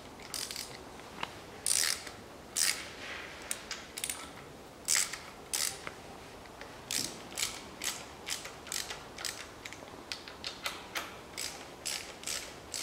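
Socket ratchet wrench clicking in short quick bursts as the bolts of a new cast-iron water pump are run down, irregular at first, then about three bursts a second from about halfway through.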